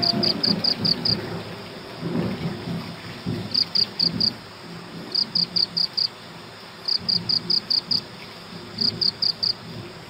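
Crickets chirping: short bursts of four to seven rapid high-pitched pulses, repeated every second or two, over a low rumbling noise.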